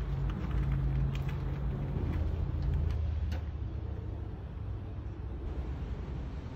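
A low, steady motor hum that drops in pitch about three seconds in, with a few faint light knocks.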